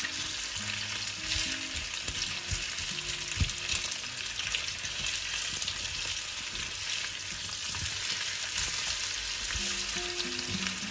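Cubed potatoes and onion sizzling in hot oil in a frying pan, with a steady hiss. A spatula stirs them, scraping and tapping the pan now and then.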